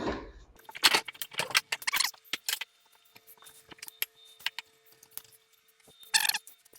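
Light metallic clinks and rattles from the golf cart's canopy and its metal struts being handled during removal. A cluster of rattles comes in the first couple of seconds, then scattered small ticks, then another short rattle near the end.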